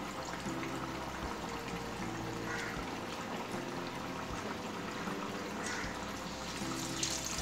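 Sabudana vada deep-frying in hot oil in an iron kadhai: a steady bubbling sizzle.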